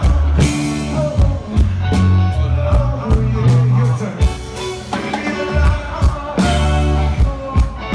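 Live rock band playing loud through the stage PA, with heavy bass notes, steady drum hits and electric guitar under a singing voice.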